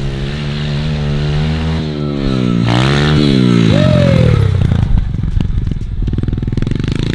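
Small pit bike's engine revving up and falling back several times as it is ridden, then dropping to a lower, choppy putter about five seconds in.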